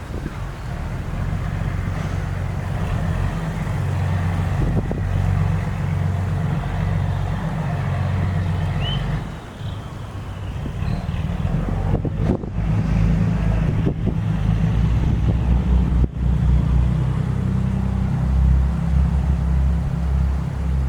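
A boat engine running with a low, steady drone, with wind buffeting the microphone, which grows gustier in the second half.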